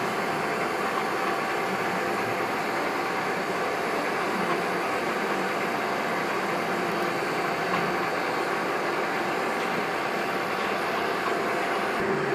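Freshly rebuilt No. 3 centerless grinder running steadily at high speed: an even machine hum with a few faint steady tones and no knocks or rattles. It is running quiet.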